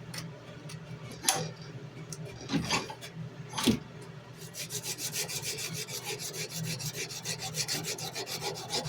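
Sandpaper being rubbed by hand along a steel knife blade to take out deep grinder scratches. A few separate slower strokes first, then from about halfway a quick, even back-and-forth of about five strokes a second.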